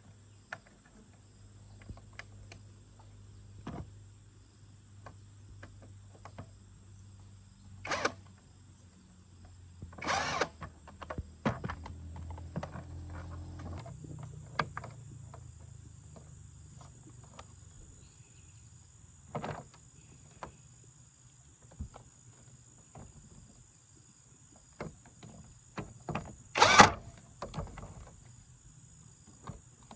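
Scattered clicks, taps and a few sharper knocks of hands and tools at work, the loudest near the end, over a low steady hum that shifts in pitch about halfway through.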